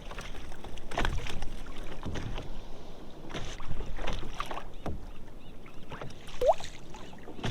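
Water splashing and knocking against a kayak in irregular strokes about once a second, with a short rising squeak near the end.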